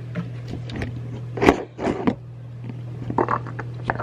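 Handling noises: a few short knocks and rustles, the loudest two about a second and a half and two seconds in, over a steady low hum.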